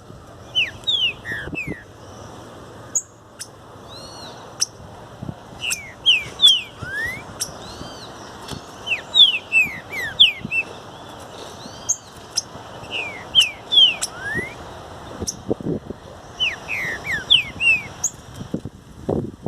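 Green-winged saltator (trinca-ferro) singing: short phrases of loud, sliding whistled notes, repeated every three to four seconds. Sharp clicks and fainter calls fall between the phrases.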